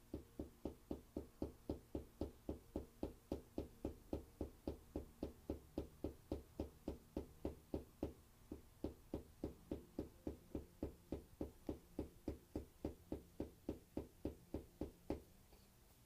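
Tok sen massage tapping: a wooden mallet knocking on a wooden peg held against the body, about four even knocks a second, with a short pause about halfway and stopping shortly before the end.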